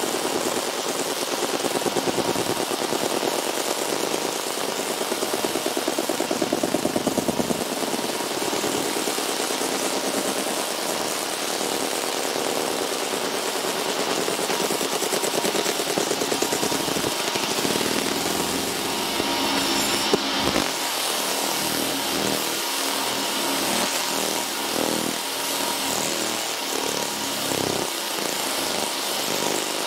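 Fiber laser engraving a steel sledgehammer head: a steady, rapid buzzing crackle as the beam works the metal, with a sharp click about two-thirds of the way through.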